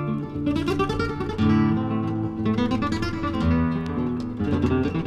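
Flamenco-style acoustic guitar music played back from a vinyl LP on a Linn LP12 turntable: quick plucked runs over long held low notes.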